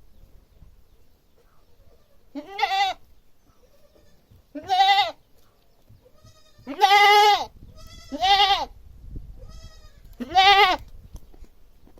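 Goat bleating loudly, five wavering calls under a second each, spaced about two seconds apart, with fainter calls in between.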